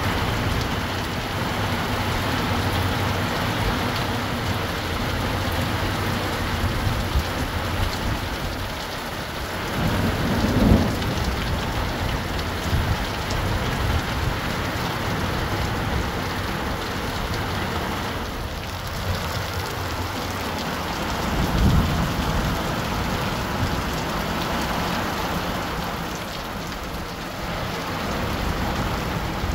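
Heavy rain falling steadily on a wet concrete courtyard, an even hiss throughout. Two brief low rumbles rise out of it, about ten seconds in and again about twenty-one seconds in.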